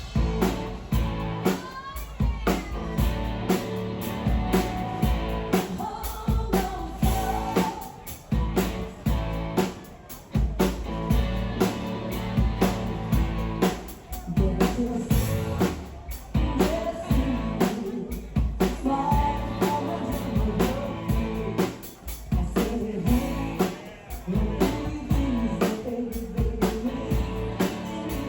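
Background song with a vocal over drums, bass and guitar, keeping a steady beat.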